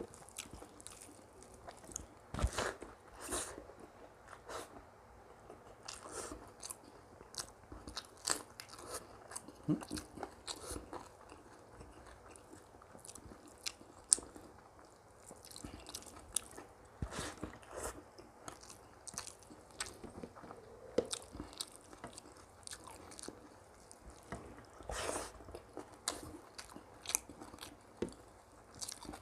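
Close-miked eating: a person chewing and biting into a meal of rice with buffalo curry and pickles, with frequent irregular sharp crunches and mouth clicks.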